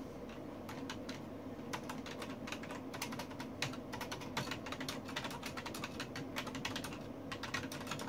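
Typing on a computer keyboard: a run of quick, irregular key clicks with short pauses between bursts.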